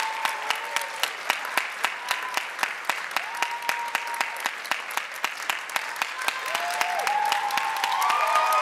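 Concert-hall audience applauding, one clapper close by standing out at about four claps a second. Voices call out in cheers over it, more of them near the end.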